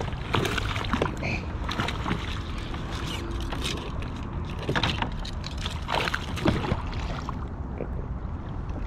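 A hooked largemouth bass being landed from a kayak: irregular splashes and sharp knocks against the boat, most of them in the first seven seconds, over a steady low rumble.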